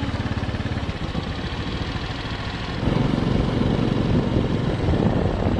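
Motorbike engine running steadily while riding along a road, with a dense low rumble that grows louder about three seconds in.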